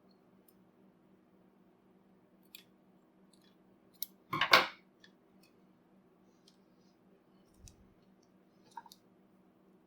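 Scissors snipping sewing thread: a short, loud burst of a few quick cuts about four seconds in, among light clicks of small handling, over a faint steady hum.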